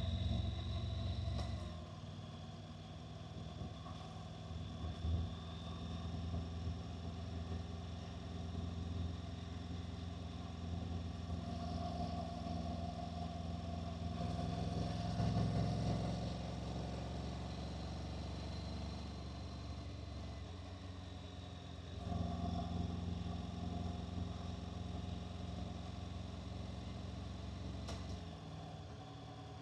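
Honda NC750X motorcycle's parallel-twin engine running on the move, with wind and road noise. The engine gets quieter about two seconds in and louder again about two-thirds of the way through.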